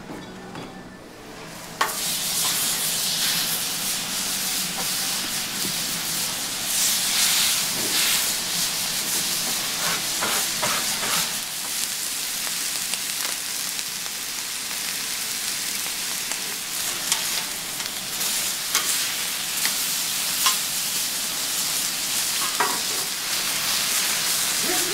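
Thick beef steaks sizzling on a hot flat-top griddle: a steady frying hiss with scattered crackles that starts suddenly about two seconds in.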